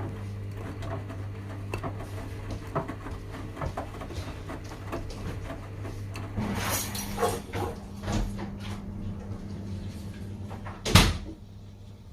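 Washing machines running a delicates wash: a steady low motor hum with scattered clicks and knocks, some rattling and swishing midway, and one sharp loud knock about eleven seconds in.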